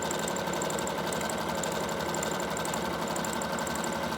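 Electric sewing machine running steadily at speed, stitching a zigzag stitch through fabric, with a constant motor whine.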